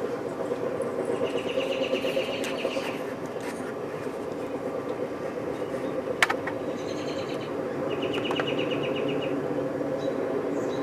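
Outdoor evening ambience: a steady low hum, with a rapid high trill heard twice and a single sharp click about six seconds in.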